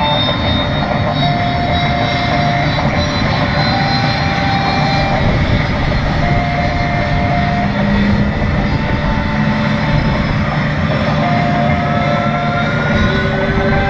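Jet engines of several USAF Thunderbirds F-16 fighters running on the ramp: a loud, steady rush with high whines at several pitches coming and going, and one whine rising slowly near the end.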